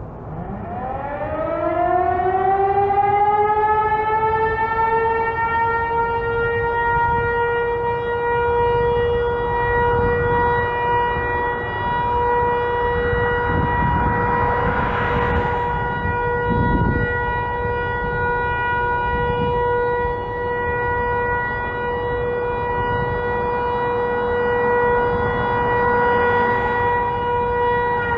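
Federal Signal Eclipse 8 outdoor warning siren sounding a test. It winds up over about five seconds from a low growl to a high, steady wail, then holds that one tone at full speed.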